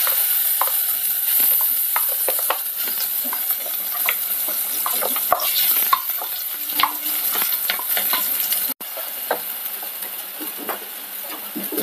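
Ground coconut and spice paste sizzling in hot coconut oil in a clay pot, with a wooden spatula scraping and stirring it against the pot. The paste is being sautéed briefly to cook off the raw taste of the coconut and chilli.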